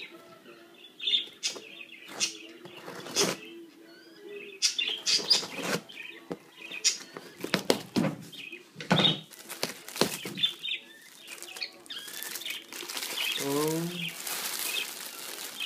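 A package being opened and its contents handled: irregular crinkling, rustling and knocking of packaging, denser near the end.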